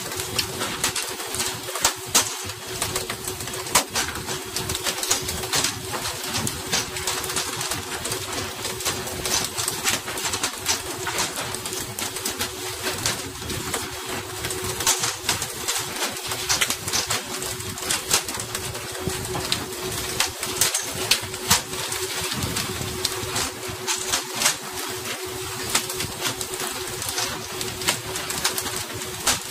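Pole-and-line tuna boat at work: a steady hiss of water spray with a constant low mechanical hum under it, and many sharp clicks and knocks as tuna are hauled aboard and land on the deck.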